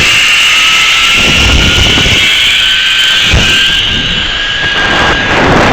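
Zipline trolley pulleys running along a steel cable: a steady high whine whose pitch rises slowly as the rider picks up speed, then fades near the end, with wind buffeting the microphone.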